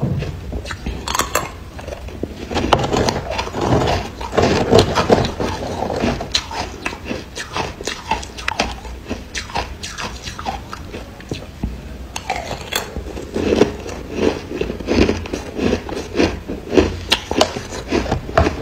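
Close-miked biting and chewing of crumbly frozen 'buckwheat ice' chunks: rapid crackling crunches, densest in two spells, a few seconds in and again near the end.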